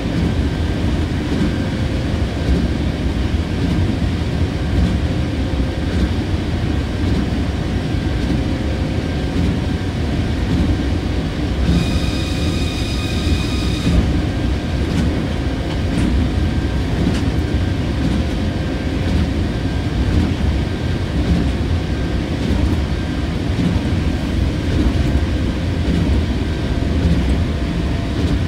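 Osaka Monorail 2000-series train running, heard from inside the car: a steady low rumble of its rubber tyres on the concrete guideway beam. A steady high tone sounds for about two seconds, about twelve seconds in.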